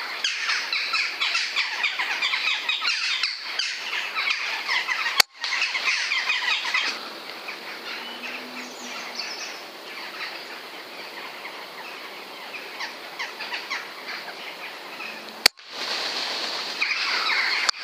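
Many small birds singing and chirping together in a busy chorus. It is loudest in the first several seconds and again near the end, fainter in between, with a sharp click about five seconds in and another shortly before the end.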